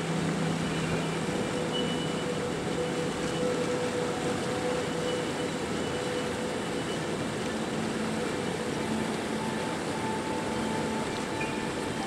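River water rushing steadily over a choppy current, an even noise with no breaks, with faint held tones of an ambient music track underneath.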